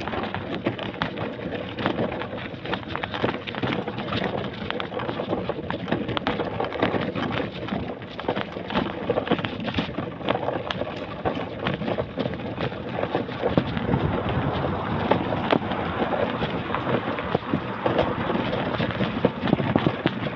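Wind rumbling on the microphone, with constant crackling and knocking from rolling over the pavement.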